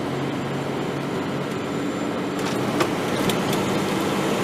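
Engine and road noise of a moving vehicle, heard from inside the cab: a steady hum whose engine note shifts to a different pitch a little past halfway, with a few faint clicks.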